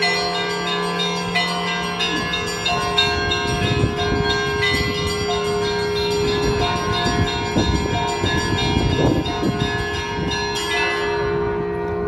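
Russian Orthodox church bells of the Zaikonospassky bell tower ringing a melodic zvon: several small bells struck in a quick, repeating pattern over the ringing tones of larger bells. The deepest bell's hum fades early on, and the quick high strikes stop near the end, leaving the bells ringing out.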